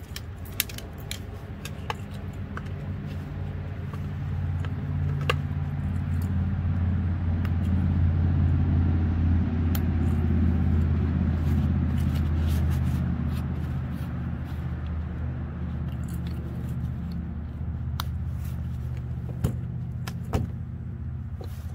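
Low engine drone of a passing motor vehicle, swelling over several seconds and fading away again, with scattered light clicks and scrapes of gear being handled.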